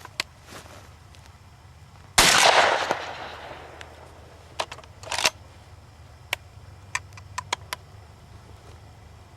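A single shotgun shot at a dove about two seconds in, ringing out and fading over about a second. It is followed by several short light clicks and knocks.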